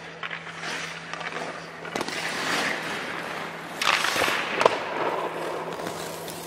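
Ice hockey goalie skate blades and leg pads scraping and sliding across the ice during a long post-to-post push, with several sharp knocks, the loudest a little over halfway through.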